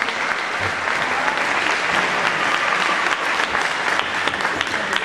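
Audience applauding steadily, many claps blending into an even patter.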